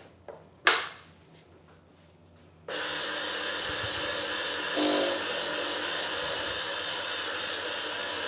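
A sharp click, then about two and a half seconds in the BISSELL SpinWave spin mop's electric motor starts suddenly and runs steadily, spinning its two mop pads. It makes a whirring hum with a thin high whine in it.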